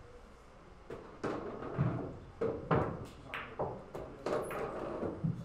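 A pool shot on a billiard table: the cue strikes the cue ball about a second in, followed by a string of about ten sharp knocks and thuds as the balls hit each other and the cushions.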